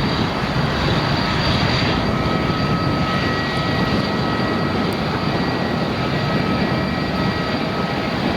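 Airliner engines running loud and steady, with a few held whining tones over the noise.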